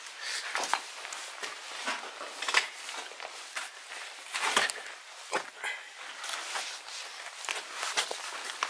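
Footsteps of a person walking: an irregular series of sharp scuffing and crunching steps.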